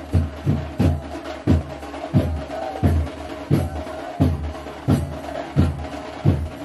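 Music led by a deep drum beating a steady rhythm, each stroke sliding down in pitch, with a held tone running through it. The first few strokes come quickly, then settle to roughly one every 0.7 seconds.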